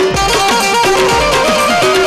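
Gujarati dakla folk-devotional music: a melody instrument plays held notes that step from pitch to pitch, over repeated drum strokes whose bass notes slide downward.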